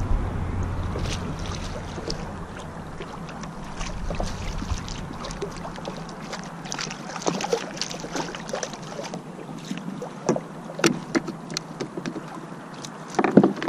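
Scattered light clicks and knocks of fishing gear and a fish being handled aboard a kayak. Under them, wind rumble on the microphone fades out over the first few seconds.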